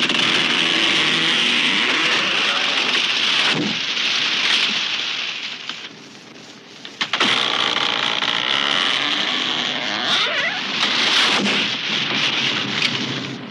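A tree falling and crashing down, a long noisy rush of snapping branches and leaves. About seven seconds in, a second crash starts suddenly and runs for several seconds before fading.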